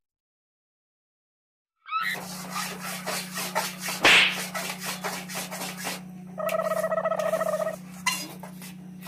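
A spatula stirring and scraping thick palm fruit pulp against a steel pan in quick repeated strokes, starting about two seconds in, over a steady low hum.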